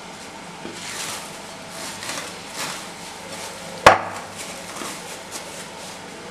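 Plastic cling film rustling and crinkling as it is peeled off a bowl of risen pizza dough, with one sharp knock about four seconds in and a few lighter ones after.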